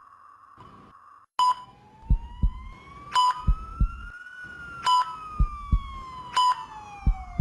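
Intensive care unit ambience: a patient monitor beeps about every 1.7 seconds, with a double thump of a heartbeat between beeps. A siren wails once, slowly rising then falling in pitch. A faint hiss cuts off a little over a second in.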